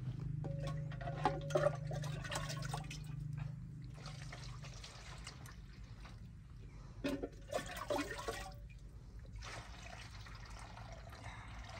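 Water scooped with a plastic cup and poured into a metal basin, in four splashing pours with gaps between them. A low steady hum runs under the first few seconds.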